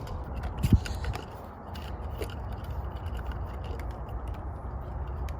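Small clicks and scrapes of a battery being loaded into a flashlight and its cap and switch being worked, with one dull thump about a second in. A steady low rumble runs underneath.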